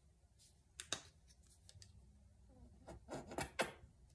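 Paintbrush rubbing and scraping as it loads paint, with a sharp scrape about a second in and a louder run of short scrapes and taps from about three seconds in.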